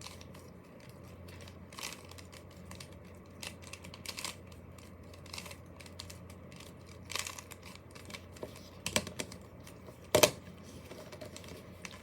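Plastic Rubik's-style puzzle cube being turned by hand during a solve: irregular quick clicks and clacks of the layers snapping round, with a louder clack about ten seconds in.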